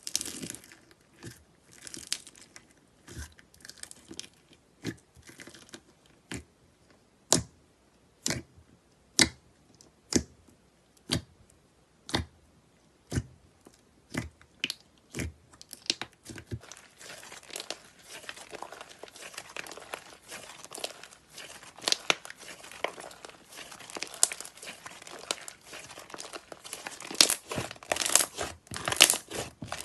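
Slime being handled and pressed, crackling: sharp separate pops about once a second at first, then from about halfway a dense run of crackling that grows louder near the end.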